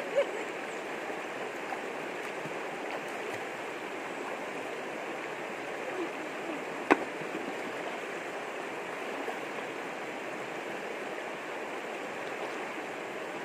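Shallow river rushing steadily over rocks and small rapids, with a single sharp click about seven seconds in.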